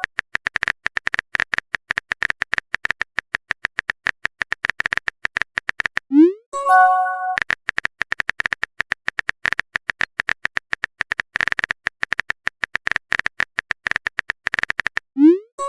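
Rapid, evenly repeating electronic clicks like a keyboard typing sound effect. About six seconds in and again near the end, a quick rising pop is followed by a short chime.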